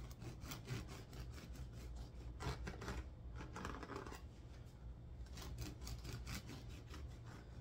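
Bread knife sawing back and forth through the crust of a freshly baked, cooled loaf of homemade sandwich bread: a quick run of faint, rasping strokes.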